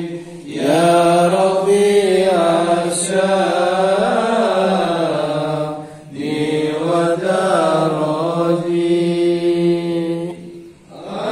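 Men's voices chanting sholawat, the Arabic devotional praises of the Prophet, unaccompanied. The chant runs in two long melodic phrases, with a brief pause about six seconds in and another near the end.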